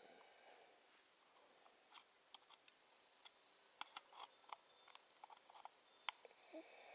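Near silence broken by faint, scattered small clicks and taps, from a 9-volt battery being handled and pressed against the contacts of a handheld analog battery tester.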